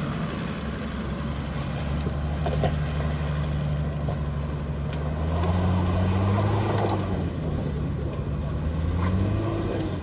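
Toyota Land Cruiser 80-series turbo's engine pulling hard up a steep dirt slope. The engine note rises and gets louder about halfway through as throttle is fed in, eases off, then climbs again near the end.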